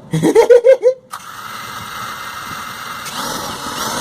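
Eachine EX4 Pro drone's motors starting abruptly about a second in and running with a steady whir that gets louder near the end.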